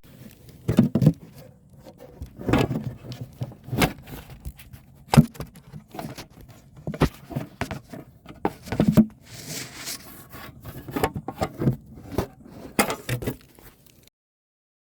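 Irregular knocks, taps and short scrapes, as of objects being handled, stopping abruptly near the end.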